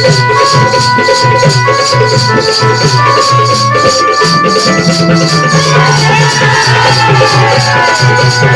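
Folk dance music with a steady quick beat of shaker-like percussion over a stepping bass line; a wavering, gliding melody comes in about six seconds in.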